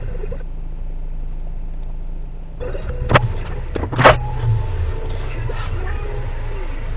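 Car engine idling, heard from inside the stationary car as a steady low rumble, with a few sharp clicks about three seconds in, about four seconds in and at the end.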